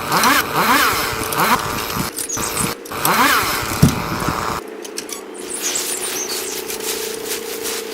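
Chainsaw engine revving up and down in quick repeated surges, then running at a steady pitch from about halfway through.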